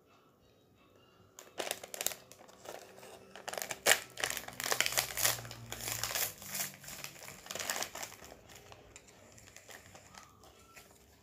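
Plastic wrapper of a trading-card pack torn open and crinkled by hand, starting about a second and a half in, loudest in the middle and dying away near the end.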